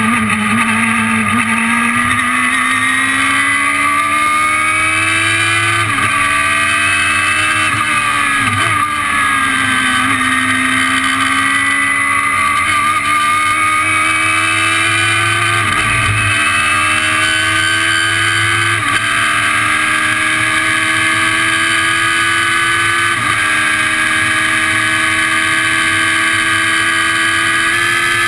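2006 Radical SR3's motorbike-derived four-cylinder engine at high revs on track, heard from the open cockpit with wind noise. The engine note climbs and then drops sharply at each gear change, about five times.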